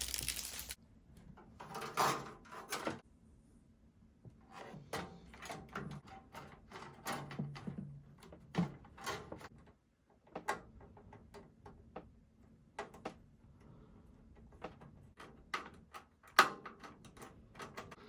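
Scattered clicks, taps and knocks of computer hardware being handled and fitted, with a short rustle near the start and one sharper click near the end.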